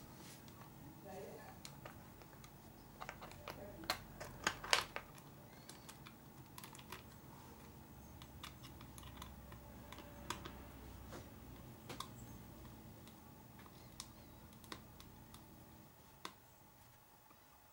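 Scattered light clicks and taps of small plastic and metal RC buggy parts being handled and fitted by hand, a quick cluster of them about four seconds in and sparser ones after. A faint low hum runs underneath.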